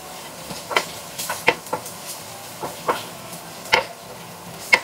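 Spatula clacking against a frying pan at irregular intervals while stink beans and aromatics are stir-fried, with a steady low sizzle underneath.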